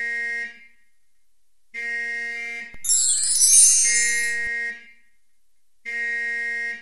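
Repeating electronic buzzer tone: a beep about a second long, sounding about every two seconds. About three seconds in, a loud, high sweeping hiss is laid over it.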